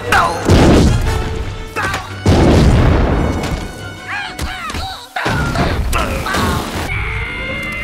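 Animated-film soundtrack: music under heavy crashes and booms of breaking, shifting rock. Three big impacts land about half a second, two seconds and five seconds in, each followed by a rumble.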